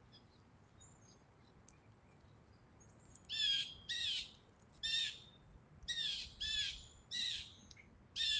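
Grackles calling: a run of about seven short, sharp calls, each a few tenths of a second long, starting about three seconds in and coming at irregular intervals.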